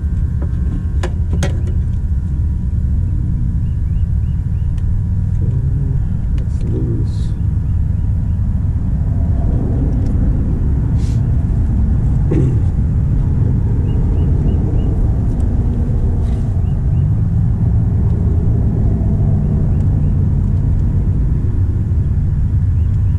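Steady low rumble throughout, with a few light clicks and taps near the start and around the middle.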